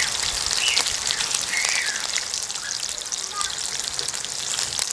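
Slices of homemade pork luncheon meat frying in hot oil in a nonstick pan over high heat: a steady sizzle with many small crackles and pops.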